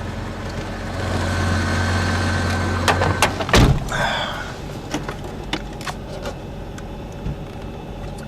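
Hot-wired Jeep's engine running with a steady hum, louder for a couple of seconds from about a second in. A single loud thump comes about three and a half seconds in, then the engine settles to a quieter steady running with scattered clicks.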